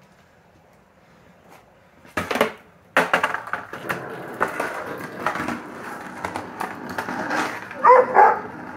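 Skateboard set down hard on a concrete driveway about two seconds in, then its wheels rolling over the concrete with scattered clicks as the rider pushes away. Near the end a dog gives two short barks.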